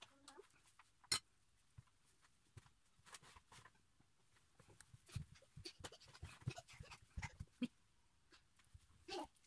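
Quiet clicks and soft knocks of a metal spoon scooping meat filling from a ceramic bowl and of hands handling thin dumpling wrappers, busiest in the second half. A brief pitched whine sounds near the end.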